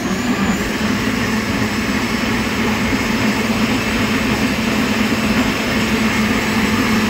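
Countertop blender running steadily at high speed, blending apple and yam into a smooth juice.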